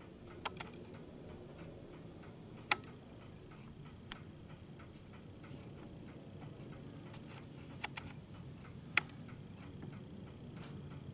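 Quartz wall clock ticking steadily and faintly, with a few sharper clicks now and then over a low room hum.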